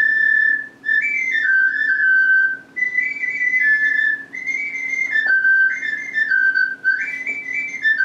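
Small handmade clay flute played in short melodic phrases of a few high, breathy notes, mostly stepping downward, with brief breaks for breath between phrases.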